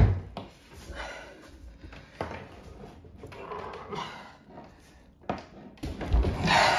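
An old tyre being levered off a Onewheel Pint's wheel hub: a sharp knock at the start, then irregular knocks and rubbery scraping, louder near the end as the tyre comes free.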